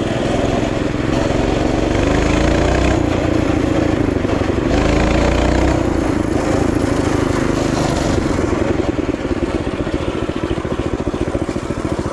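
Mini bike's small engine running under way, its speed rising a couple of seconds in and easing off near the end.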